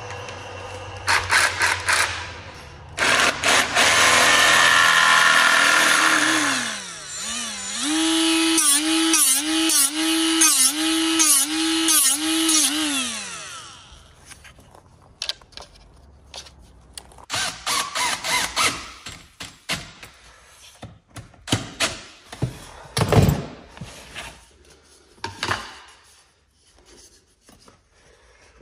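Cordless power tools at work: a loud grinding noise for a few seconds, then a small motor whining, its pitch rising and falling in a steady rhythm about seven times as the tool is loaded and eased, then scattered knocks and taps.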